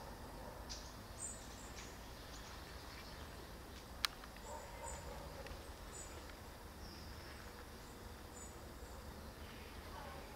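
Quiet outdoor ambience with a low steady rumble and a few faint, short bird chirps, and one sharp click about four seconds in.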